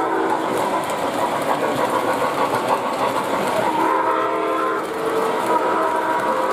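O gauge model steam train running past on three-rail track, its wheels rattling steadily over the rails. The model steam locomotive's whistle sounds a chord of several notes, clearest from about halfway through.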